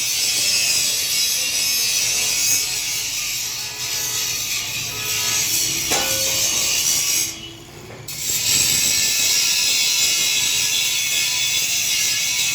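Electric arc welding: a steady crackling hiss from the arc, which breaks off for about a second just past the middle and then starts again.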